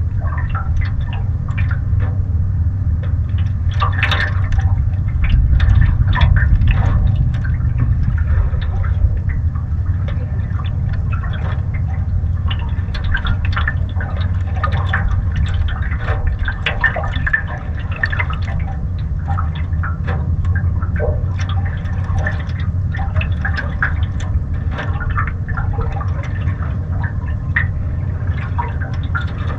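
Water lapping and splashing irregularly against a canoe's hull as it moves across choppy water, over a steady low rumble of wind buffeting the microphone.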